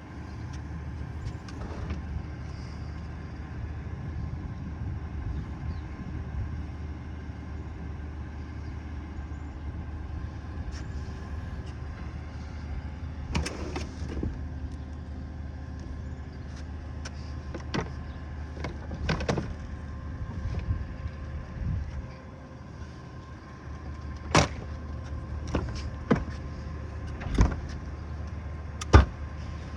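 Garbage truck engine running steadily. A few loud, sharp bangs come in the last six seconds, typical of bins being emptied into the truck.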